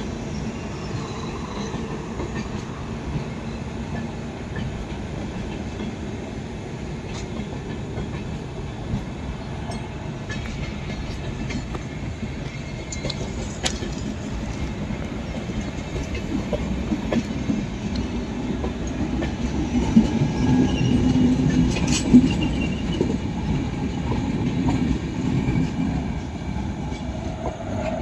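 Sarnath Express passenger coaches running along the track, their wheels clattering steadily over the rail joints. The clatter swells louder about two-thirds of the way in, with a couple of sharp clanks.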